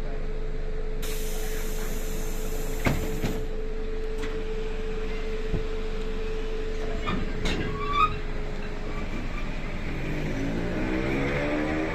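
ER2 electric train running with a steady hum and a few clunks and knocks, then, about ten seconds in, a whine that rises in pitch as the traction motors speed up and the train accelerates.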